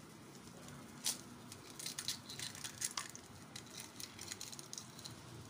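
Raw egg being cracked open by hand over a small ceramic bowl: a few faint clicks and crackles of the shell breaking and being pulled apart, the sharpest about a second in.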